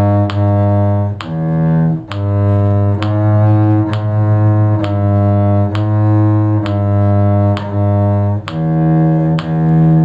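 A cello bowing the bass line of a folk-style tune in A major: low sustained notes, each starting with a clear bow stroke and changing about once a second.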